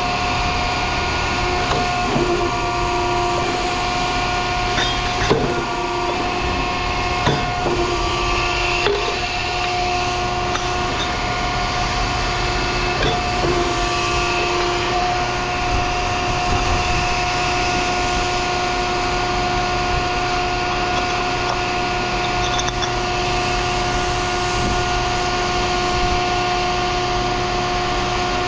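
A steady machine hum with several fixed tones, with a few sharp knocks in the first ten seconds.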